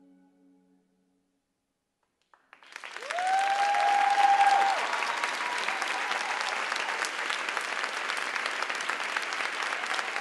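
The last sustained tones of the music die away, then after a short silence a theatre audience breaks into applause about two and a half seconds in, quickly building to full clapping. A long cheer rises over the clapping soon after it starts.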